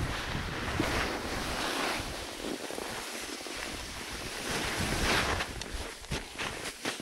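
Skis sliding over packed snow with a steady hiss that swells into a louder swish twice, and wind rushing over the microphone.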